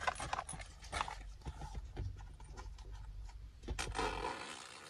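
Zipper on a small fabric shoulder bag being pulled closed, with irregular clicks and scratches of the bag being handled; a louder rustle of the fabric about four seconds in.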